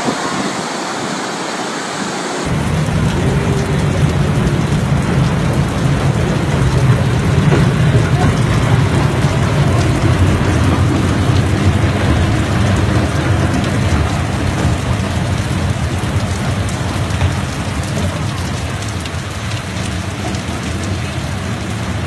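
Rushing floodwater for about the first two seconds, then a cut to a heavy downpour: a dense, steady rain hiss with a strong low rumble underneath.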